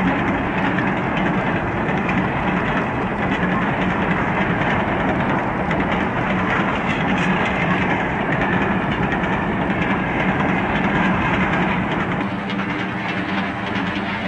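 N scale model train, a diesel locomotive hauling loaded gondolas, running along the track: a steady rumble with clatter of wheels on rail. A steady hum joins near the end.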